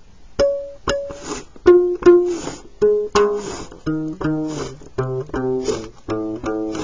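A stretched rubber band on a cardboard-box homemade instrument is plucked about fifteen times, with test tubes as bridges. The notes step down in pitch as the bridges are moved apart and the plucked length of band grows longer; the longer the length, the lower the pitch.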